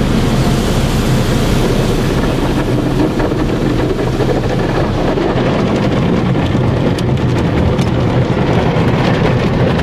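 Automatic car wash heard from inside the car: water jets spraying and foam and water washing over the windshield and body, a loud steady rush.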